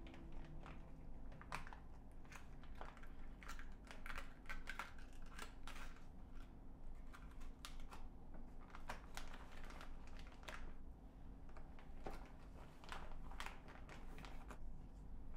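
Clear plastic freezer bag crinkling and rustling as vegetables are handled into it: many small, irregular, faint crackles.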